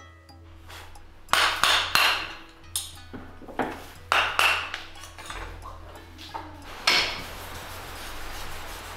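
Wooden mallet striking, about eight sharp knocks with a bright, ringing clink, in a quick run in the first half and one more near the end.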